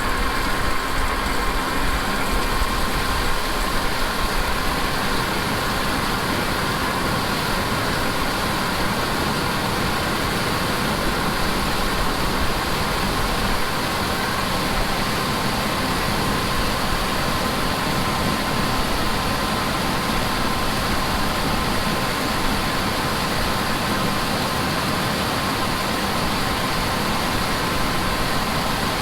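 Diesel engine of a large harvest machine running at a steady speed: a constant broad rumble with a thin steady whine over it.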